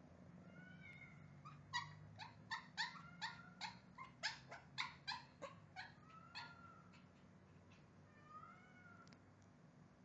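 Small dogs, a Pekingese and a Chihuahua, yipping: a quick run of short high yips, about three a second for some four seconds, with drawn-out whines rising and falling before and after.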